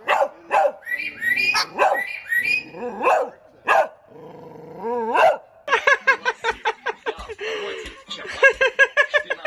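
A parrot mimicking a small dog: gliding yelps and whines, then about halfway through a rapid run of yapping barks, roughly five a second.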